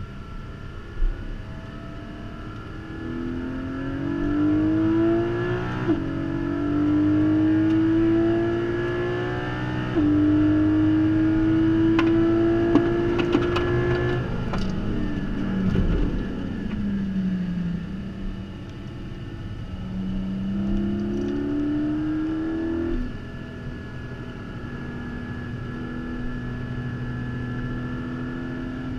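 A 2022 Porsche Cayman GT4's naturally aspirated flat-six, heard from inside the cabin, pulling hard on track: the pitch climbs and drops sharply with quick PDK upshifts about six and ten seconds in. It then falls away through downshifts and braking around the middle, climbs again through another shift, and settles to a steady, lighter note for the last few seconds.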